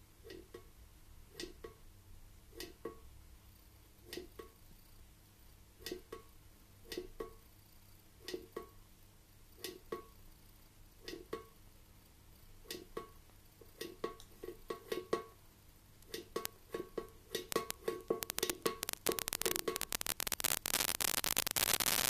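An African grey parrot's beak knocking and tapping inside a metal watering can, each strike making the can ring briefly, about one knock every second or so. The knocks come quicker after about sixteen seconds, and near the end a louder, dense continuous sound builds up.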